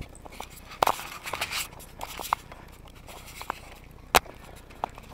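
Handling noise of a small action camera being picked up and carried: rustling and scraping against the microphone with scattered sharp knocks, the loudest a little after four seconds in.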